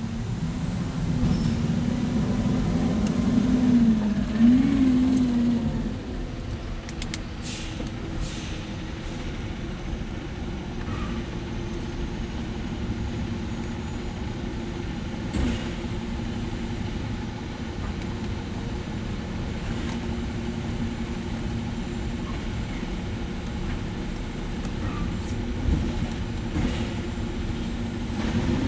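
1995 Chevy Impala's V8 engine running, revved briefly twice about four seconds in, then idling steadily.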